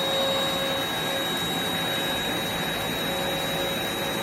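Hoover Spotless portable carpet and upholstery spot cleaner running steadily, its suction motor giving an even hiss with a steady high whine, while it sprays cleaning solution onto a carpet stain.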